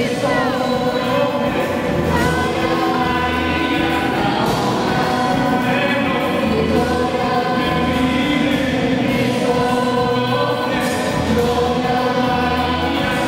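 Christian worship song, with a choir singing over instrumental backing and a regular bass pulse.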